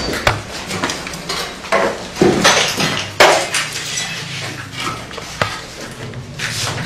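Irregular metallic clanks and knocks of objects being struck and thrown about as a shrine is smashed up, the loudest about two and three seconds in.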